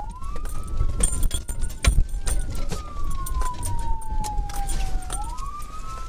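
Police siren wailing, its pitch sliding slowly up and down, heard from inside the pursuing patrol car over the rumble of the engine and road. A few sharp knocks, the loudest about two seconds in.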